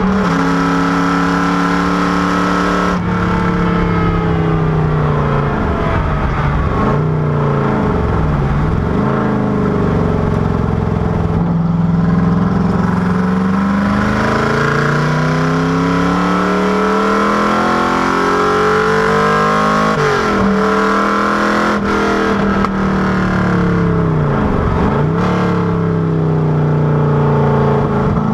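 V8 engine of an FFR Cobra Daytona Coupé replica under hard running on a race track. Its note climbs and falls continuously with throttle and gear changes, with sudden drops in pitch at the shifts.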